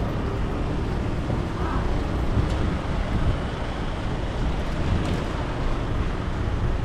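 Busy street ambience: a steady low rumble of traffic and general crowd noise, with faint voices here and there.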